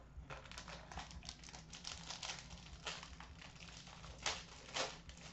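Faint crinkling and crackling of card-pack wrapping and packaging being handled as a trading-card pack is opened, with two louder crackles near the end.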